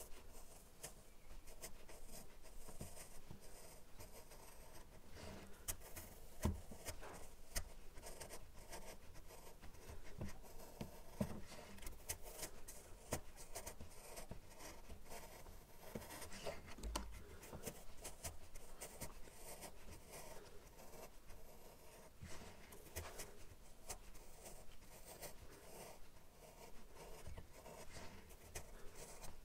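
Freshly sharpened chisel paring thin shavings off a softwood block in repeated slicing strokes: a faint, crisp scraping with scattered small clicks.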